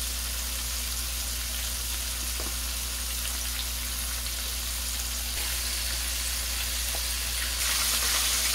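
Flour-coated chicken drumsticks frying in hot vegetable oil in a pan: a steady sizzle with scattered small crackles, growing louder near the end.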